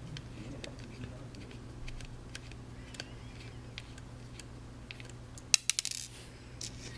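Small metal parts clicking as screws are worked out of a plastic action camera. About five and a half seconds in, a small metal piece clatters onto a hard surface with several quick bounces.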